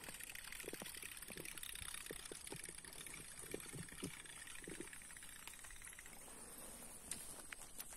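Faint water sounds with scattered soft ticks and knocks over a steady high hiss.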